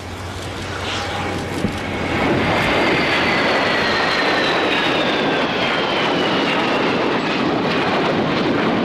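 Panavia Tornado jet, with its two RB199 turbofans, flying by. The engine noise grows louder about two seconds in and then holds, with a high whine that slowly falls in pitch.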